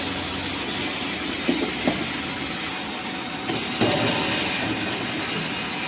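Metal clicks and knocks as toggle clamps are released and the side access door of a gyratory screen is lifted off: two knocks a little under two seconds in, then a cluster of clanks a little over three seconds in. Steady workshop noise runs underneath.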